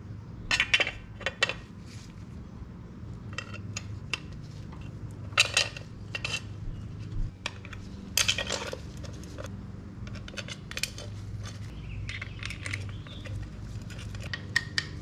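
Irregular metallic clinks and knocks of hand tools and bolts being handled while a motorcycle clutch cover is refitted. The clinks come singly and in short clusters, the loudest about half a second in, around five and a half seconds in and around eight seconds in.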